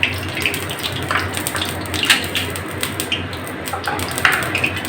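Refined vegetable oil being poured into a hot kadai: a steady pouring rush with a few light clicks.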